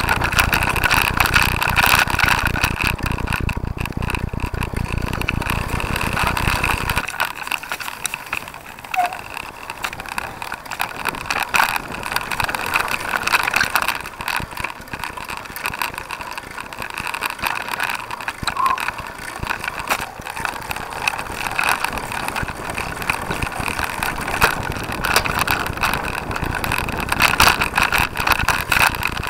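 Ride noise picked up by a camera mounted on a cyclocross bike on rough grass: a constant dense rattle with tyre noise, and a heavy low rumble that drops away about seven seconds in.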